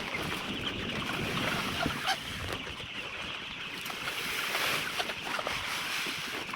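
A large flock of young laying hens in a poultry shed: a steady, dense hubbub of many birds, with scattered small clicks and taps.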